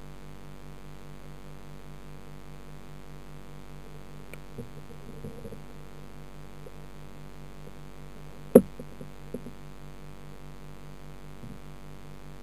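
Steady, pulsing hum of the tank's aquarium filter pump heard underwater. There are a few soft taps about a third of the way in, then one sharp knock a little past halfway with two smaller taps after it.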